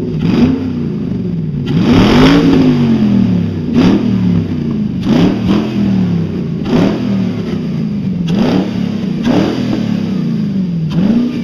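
Nissan VK45DE 4.5-litre V8 running on a stand, its throttle blipped about eight times so that the revs rise and fall every second or two.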